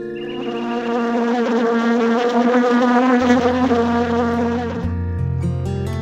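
A bee buzzing, a loud steady drone whose pitch wavers slightly. It stops about a second before the end as acoustic guitar music comes back up.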